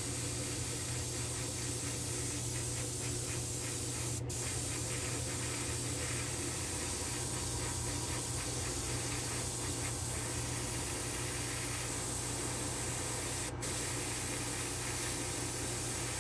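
Airbrush spraying paint with a steady hiss over a low, constant hum, broken by two very short pauses about four seconds in and near the end.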